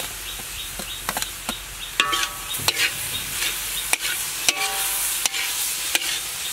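Beef sizzling steadily in a hot metal wok as dried mushrooms are stirred in, with a utensil scraping and clinking against the pan; a few of the knocks ring briefly.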